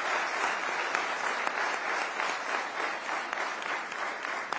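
Large audience applauding steadily, many hands clapping together.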